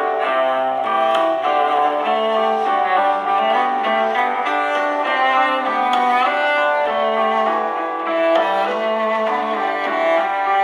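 A Samsung Galaxy S6 edge+ ringtone playing: an instrumental melody with bowed strings and piano.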